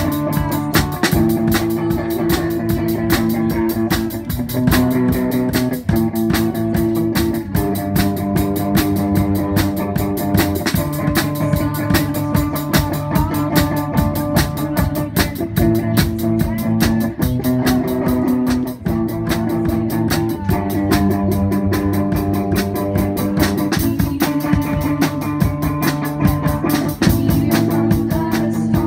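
Live rock band playing: electric guitars through amplifiers over a drum kit, with steady drumming and guitar chords changing every second or two.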